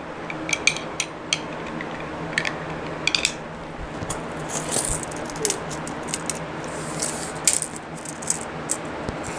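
Metal pieces of a serpentine belt tool kit clicking and clinking as they are handled and fitted together, the extension bars snapping and locking into place, in irregular sharp clicks over a steady low hum.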